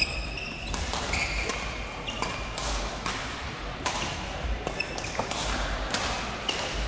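Badminton rally on an indoor court: sharp racket strikes on the shuttlecock and quick footsteps come irregularly, with short high-pitched shoe squeaks on the court floor a few times.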